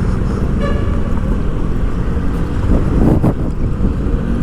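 Street traffic and wind rumbling on the microphone of a moving vehicle. A short high tone sounds about half a second in, and a louder passing swell comes about three seconds in.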